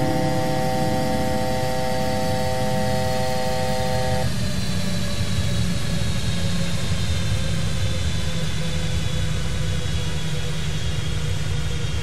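Steady low rumble of an airliner's engines heard in the cockpit, with a faint high whine that slowly falls in pitch. For about the first four seconds a steady chord-like alert tone of several pitches sounds, then cuts off.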